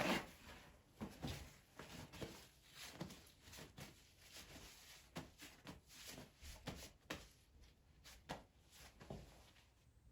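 Hands rubbing: a run of soft, irregular rubbing and squeaking strokes, loudest at the very start.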